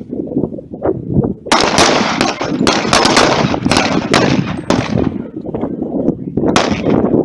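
Rapid pistol fire at pop-up targets: sharp shots in quick succession, coming thick and overlapping from about a second and a half in until around five seconds, then spacing out again.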